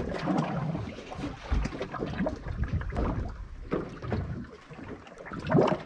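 Small fishing boat at sea: a low steady rumble with water noise, and irregular knocks and clatter on deck.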